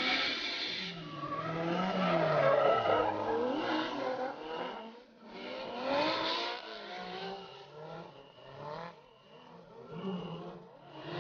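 Two drift cars in tandem, engines revving up and down while their tyres squeal and skid through a slide. Loudest a couple of seconds in, with another surge about six seconds in.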